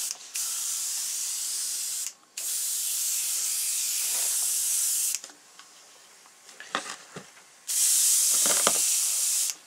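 Airbrush spraying paint with a steady hiss in long bursts, cut by short breaks and a longer pause of about two and a half seconds past the middle, in which a few light clicks and knocks are heard.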